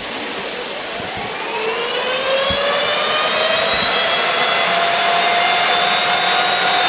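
Diesel locomotive's engine running up, with a whine that rises in pitch from about a second in and levels off into a steady high whine as the engine gets louder.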